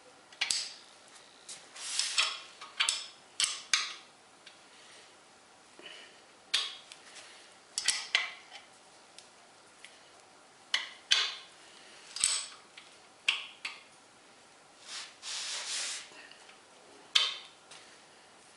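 Metal engine parts and hand tools clinking and knocking together in separate, irregular sharp clinks, with a longer scraping or rubbing sound about fifteen seconds in.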